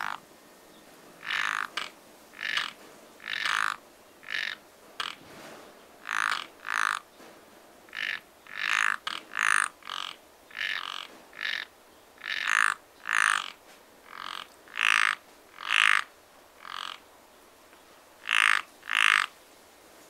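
Frogs croaking: loud calls of about half a second each, often in close pairs, repeating every second or two with short quiet gaps between.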